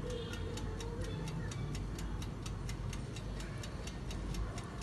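Wind-up timer of an electric OTG oven ticking steadily, about four or five ticks a second, while the oven grills.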